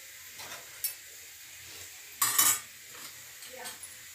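Metal kitchen utensils clinking: a sharp click just before one second, a short louder clatter a little after two seconds, and a light knock near the end.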